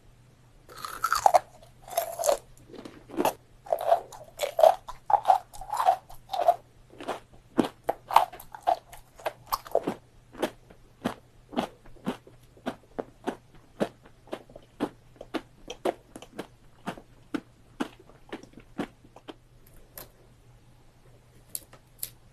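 Chewing of kohakuto (amber sugar candy), its crisp sugar crust crunching between the teeth. The crunches come thick and fast at first, then settle into single, regular crunches about two a second before stopping near the end.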